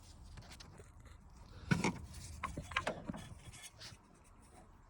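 Faint handling noises: rubbing and scraping with a few small clicks and knocks, the loudest a short knock a little under two seconds in.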